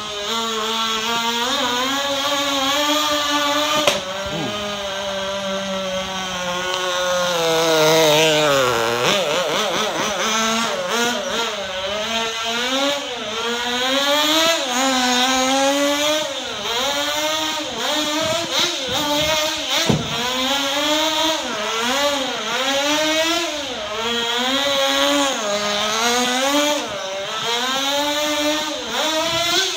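Small two-stroke nitro glow engine of a 1/16-scale Sportwerks Chaos RC buggy, revving up and down again and again as the buggy is driven hard around the track. The pitch drops low about eight seconds in, then climbs back. There are two sharp knocks, about four and twenty seconds in.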